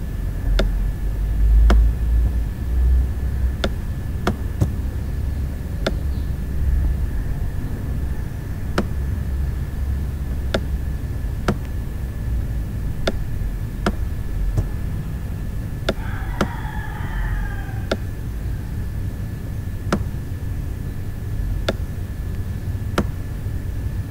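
Computer mouse clicking at irregular intervals, roughly once a second, over a low steady rumble of background noise with a faint steady whistle-like tone. A short warbling tone sounds about two-thirds of the way through.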